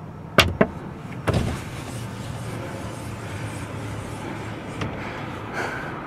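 Two sharp clicks and a dull thump inside a parked car, followed by a steady low background hum.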